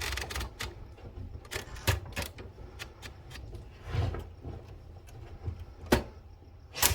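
Scattered clicks and clacks from a 1970 Citizen X3 manual typewriter being handled and adjusted, with a sharp click about six seconds in.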